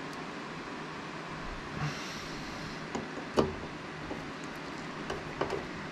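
Screwdriver and small screws clicking and tapping against a motherboard being screwed down onto its mounting board, with a brief rustle about two seconds in and one sharp click about three and a half seconds in, over a steady hiss.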